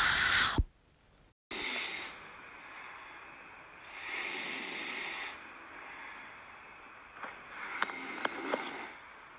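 Cat snoring in its sleep: hissy, wheezy breaths. A loud breath at the start ends with a click, there is a second of near silence, and then breaths swell and fade about every two to three seconds, with a couple of small ticks near the end.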